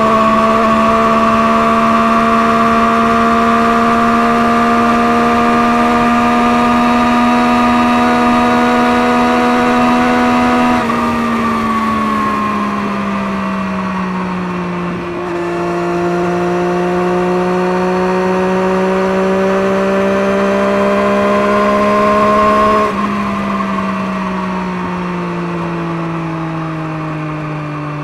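Motorcycle engine running through a Scorpion aftermarket exhaust, under way. The engine note climbs slowly for about ten seconds, then drops away. It climbs again and drops off once more near the end.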